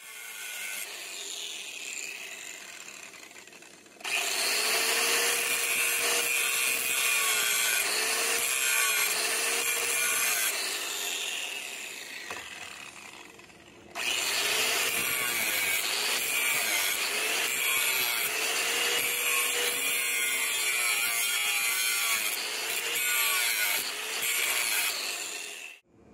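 Angle grinder with a thin cutoff disc gouging a groove along a crack in a metal headlight bracket, grinding out the crack before it is filled with MIG weld. It grinds loudly in two long spells, from about four seconds in and again from about fourteen seconds in, and the motor's whine sags and recovers as the disc bites.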